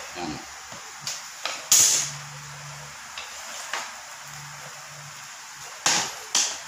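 Handling noise from hand-splicing a twisted rope with a metal spike: a series of sharp knocks and clicks as the tool and rope are worked, the loudest about two seconds in and two more close together near the end.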